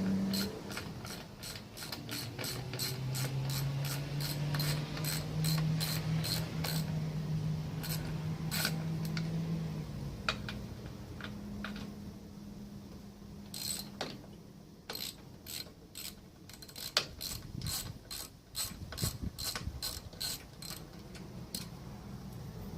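Rapid runs of sharp ratcheting clicks, about two to three a second with short pauses, like a ratchet wrench being worked back and forth. A low steady hum runs under the first ten seconds or so.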